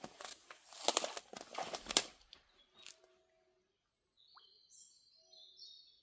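Footsteps crunching on the forest floor for about two seconds, then stopping. Near the end a small bird gives short, high chirps.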